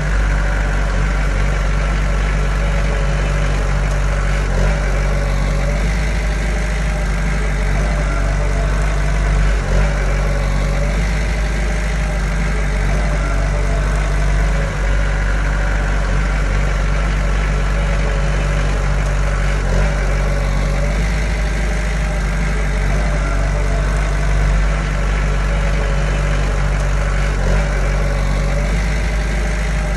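Small Komatsu bulldozer's diesel engine running steadily, heavy in the low end.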